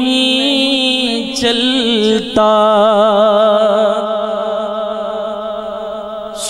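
A man singing a naat unaccompanied into a microphone, drawing out the words with wavering vibrato; about two and a half seconds in he starts a long held note that he sustains almost to the end.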